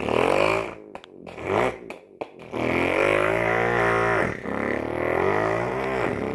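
A child's voice imitating a Koenigsegg supercar engine, buzzing through the lips and throat. There is a short burst at the start, then one long held engine sound from about two and a half seconds in, with a brief dip in the middle.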